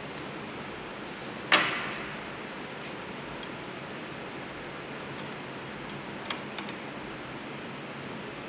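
Hex key and loosened screws working on a lathe's cast-iron carriage and apron during disassembly: one sharp metal clink about a second and a half in that rings briefly, then two light clicks a few seconds later, over a steady hiss.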